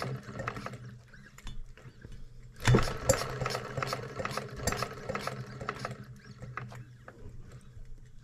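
Small model hot bulb engine being spun over by hand at its flywheel, with a quick run of mechanical clicks from its moving parts that slows as the flywheel coasts down. A fresh spin about two and a half seconds in starts a louder run of clicks. It does not fire, which the owner puts down to having flooded it.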